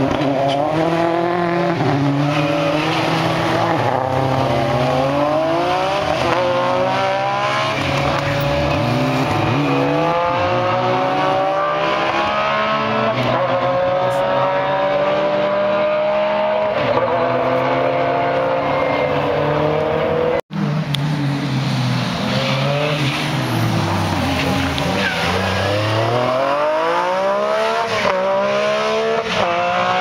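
Ford Focus WRC's turbocharged four-cylinder rally engine being driven hard, its pitch climbing through the revs and dropping back again and again as it changes gear. The sound cuts out for an instant about two-thirds of the way through, then carries on.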